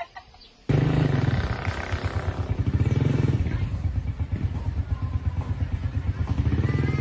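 A small engine running close by with a rapid, even pulse. It starts abruptly about a second in and rises and falls a little.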